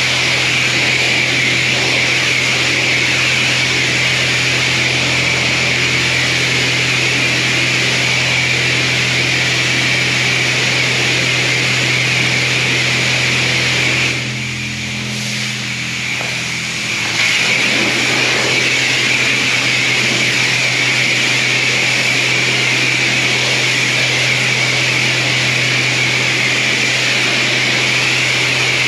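High-pressure wash wand spraying water steadily over a constant pump hum. The spray cuts off for about three seconds around the middle while the hum carries on, then resumes.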